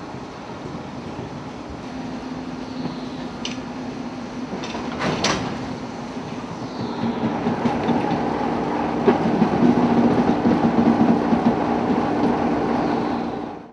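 A slow train rolling past, wheels and couplings giving a few sharp clanks early on. The steady hum of a Class 33 diesel locomotive's Sulzer engine grows louder in the second half as the locomotive draws near.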